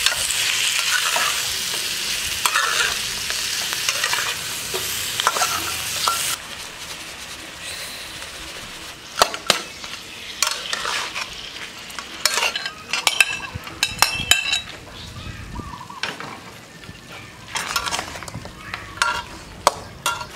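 Chicken pieces frying and sizzling in a nonstick wok while a metal spatula stirs them, scraping and knocking against the pan. The sizzle is loud for about six seconds, then drops suddenly, leaving a quieter sizzle with frequent sharp spatula scrapes and knocks.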